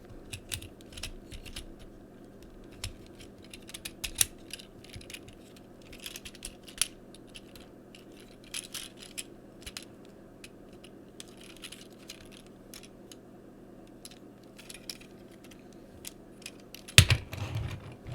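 Plastic parts of a Transformers Siege Hound action figure clicking and rattling as it is handled and its arms are adjusted: irregular small clicks, with a louder knock near the end.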